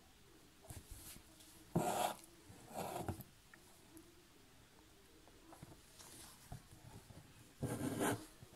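Needle and a single strand of embroidery floss drawn through fabric stretched in a hoop: a few short swishes, about two and three seconds in and again near the end.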